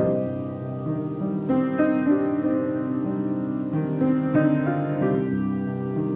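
Piano playing a slow piece, with a new chord or note struck about every second and left to ring.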